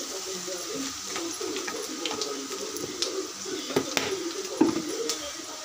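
Vadagam (sun-dried seasoning balls), mustard and fenugreek seeds crackling in hot oil in an earthenware pot, with scattered sharp pops as the vadagam fries.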